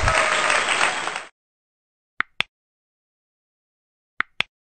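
Outdoor field background noise that cuts off abruptly about a second in, followed by dead silence broken by two pairs of quick mouse-click sound effects from a subscribe-button animation, about two seconds apart.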